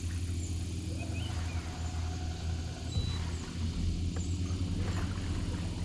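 A boat motor running steadily at low speed, a low even hum, with faint high chirps and squeaks now and then.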